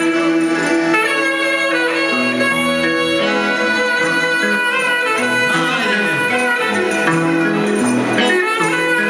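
Albanian kaba played instrumentally by a small folk ensemble: clarinet and violin carry an ornamented melody with pitch slides, over guitar and frame-drum accompaniment.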